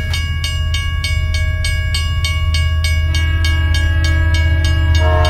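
Steam train sound: a steady rumble with a regular chuff about four beats a second, joined by a train whistle chord from about three seconds in that grows fuller near the end.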